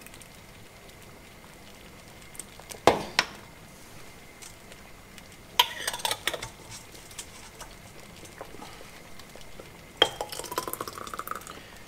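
Metal ladle and glass jar knocking against a stainless steel bowl while hot blackcurrant jam is ladled into jars: one sharp clink about three seconds in, then clusters of clinks and knocks around six seconds and again near the end.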